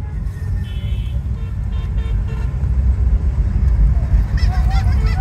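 Heavy low rumble of a motor vehicle and road traffic. Vehicle horns toot briefly about a second in and again around two seconds in.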